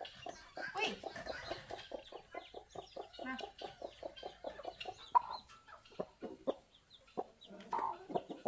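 Domestic chickens clucking: a quick, steady run of short clucks, with a few louder calls about five seconds in and again near the end.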